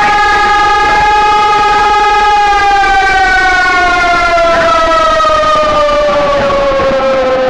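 Civil defense siren sounding a loud steady tone, then beginning to wind down, its pitch falling slowly and evenly from about two seconds in.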